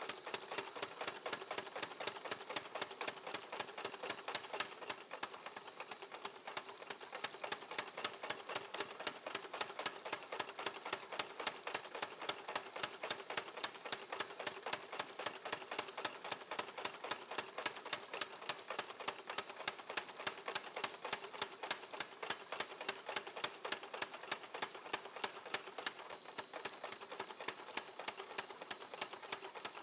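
Hammer blows on steel at the anvil while forging a nakiri knife blade, struck in a fast, even rhythm of several blows a second.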